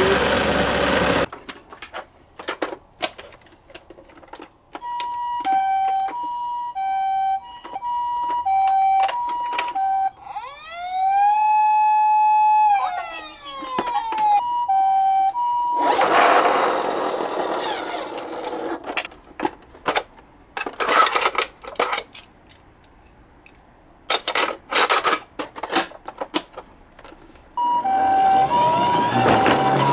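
Toy emergency-vehicle siren sounds: an electronic two-tone hi-lo siren in the style of a Japanese ambulance, alternating steadily for several seconds, then a single wail that rises, holds and falls about ten seconds in, then the hi-lo tones again twice. Between the sirens come scattered clicks and rattles and a few seconds of rushing noise.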